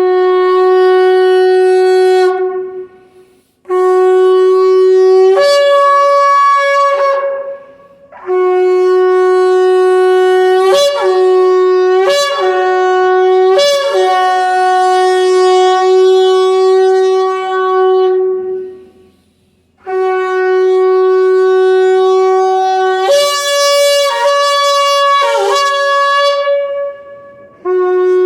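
Kudu-horn shofar played as a melody: long held blasts on a low note that step up to a higher note and back, with quick upward flicks in the middle of one phrase and a falling slide near the end. Four long phrases, split by short pauses for breath, and a fifth begins at the very end.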